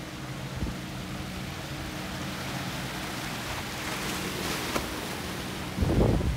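Twin Suzuki outboard motors on a power catamaran running steadily under way, with rushing water and wake hiss that swells around the middle. Near the end, wind buffets the microphone with a sudden loud rumble.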